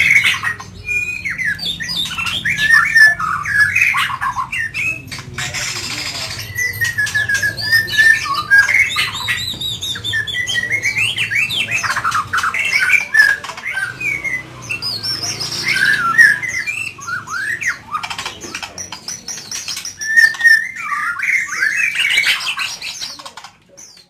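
Caged white-rumped shama (murai medan) singing without pause: a long, varied song of rapid whistled notes that rise and fall, in quick phrases one after another.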